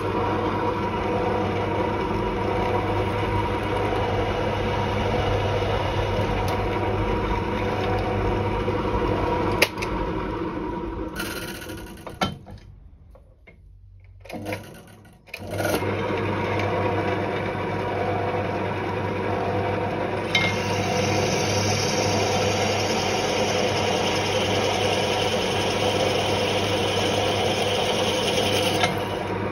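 Bench drill press motor running steadily while drilling a small metal steam chest. It winds down about twelve seconds in and starts again a few seconds later for the tapping-size drill. From about twenty seconds in, a higher cutting hiss joins as the drill bites into the metal.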